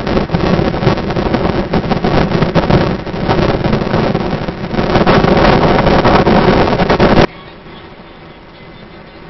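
Loud, gusting wind and road noise from a car in motion, filmed out of its side. It cuts off abruptly about seven seconds in, giving way to a much quieter, steady hum inside the car's cabin.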